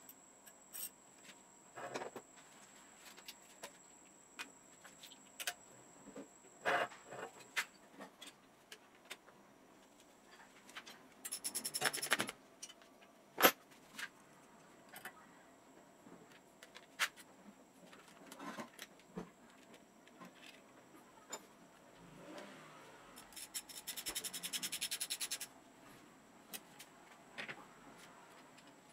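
Bicycle parts and hand tools being handled and fitted: scattered metal clicks, knocks and rubbing, with two bursts of rapid, even clicking lasting a second or two each, and one sharp knock about halfway through.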